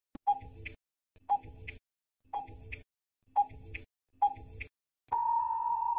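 Quiz countdown timer sound effect: five short ticks about a second apart, then a steady beep about a second long that marks time running out.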